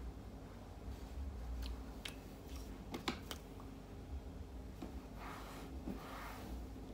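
Faint clicks and rustling as makeup items, including a plastic contour palette, are picked up and handled, with a few sharp clicks a second or two in and a softer rustle near the end, over a low steady room hum.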